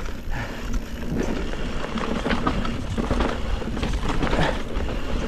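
Mountain bike riding over rough singletrack: tyres rolling over dirt and roots, with the bike's frame and drivetrain rattling in frequent clicks and knocks over a steady rumble.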